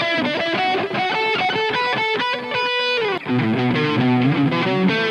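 Electric guitar playing a quick single-note melodic solo through an M-Vave Tank-G multi-effects unit, recorded direct into a phone, the line dropping into lower notes about three seconds in.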